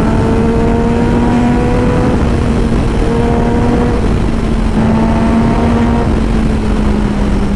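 Yamaha MT-09's 847 cc inline three-cylinder engine, breathing through an Akrapovic Racing Line titanium full exhaust, running hard at expressway speed. Its pitch rises slightly in the first couple of seconds and then holds steady, under heavy wind rush.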